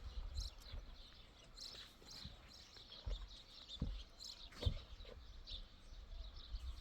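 Small birds chirping on and off, with a few dull low thuds about three to five seconds in.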